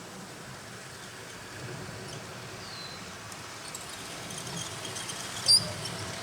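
A G-scale model train running on a garden railway layout, its sound slowly growing louder over outdoor background noise. A short, sharp high-pitched sound comes about five and a half seconds in.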